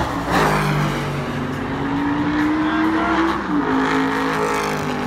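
Vintage V8 race cars, led by AC Cobras, passing at speed one after another. One car's engine note climbs and then drops sharply as it goes by, about three and a half seconds in.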